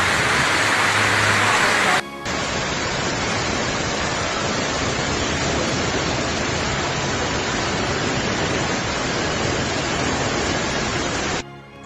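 Heavy rain pouring down: a steady, loud hiss. It breaks off sharply about two seconds in and goes on as a slightly duller hiss, then drops away near the end.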